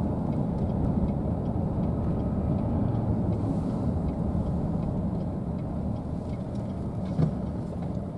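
Car's engine and tyre noise heard from inside the cabin, a steady low rumble that eases slightly in the second half as the car slows to turn. A single short knock about seven seconds in.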